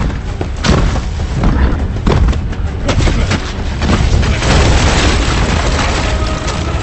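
Film sound effects of a giant wild boar charging: a deep rumble with heavy booming impacts, and a crash of splintering wood about five seconds in as it smashes through a tree trunk, under the film's music.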